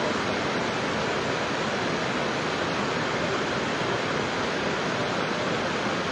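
Kushiyara river floodwater pouring in a torrent through a breach in its bank, rushing as turbulent whitewater over the ground: a steady roar of water.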